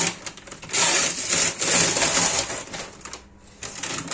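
Shipping packaging rustling and crinkling as a parcel is pulled open by hand, loudest in a long stretch from about a second in, then dying down near the end.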